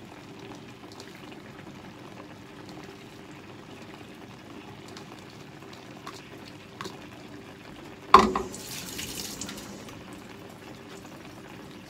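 Pot of fish simmering on the stove, a steady bubbling with scattered small ticks. About eight seconds in comes one sharp knock, followed by a brief hiss.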